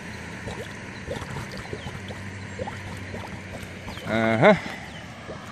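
Air and water bubbling up through a round drain cover submerged in floodwater: scattered short glugs over a steady watery wash. About four seconds in, a brief voice-like exclamation.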